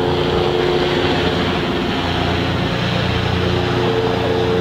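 A steady engine drone, a few held tones over a continuous rush of noise.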